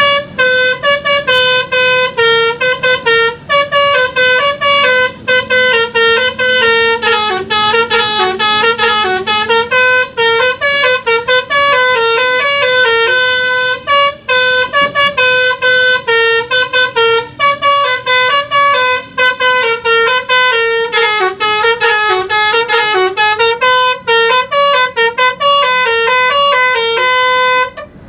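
Bus 'telolet' musical air horn playing a long tune of short and held notes that step up and down in pitch, heard from inside the bus.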